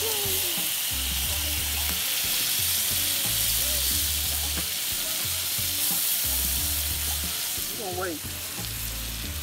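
Bass fillets frying in butter in a cast iron skillet: a steady sizzling hiss. Low repeating bass tones run underneath.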